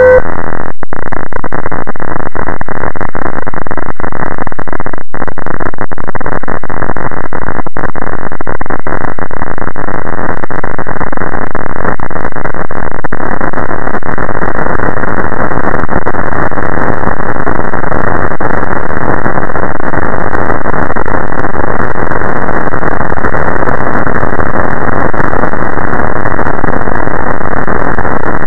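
Harsh, heavily distorted noise, clipped at full loudness and muffled, with nothing above a low cutoff. It breaks off for an instant a few times in the first eight seconds and grows a little denser and brighter partway through.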